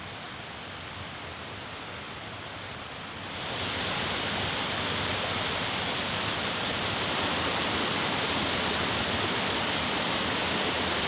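Rushing stream water, a steady rush that gets suddenly louder about three seconds in.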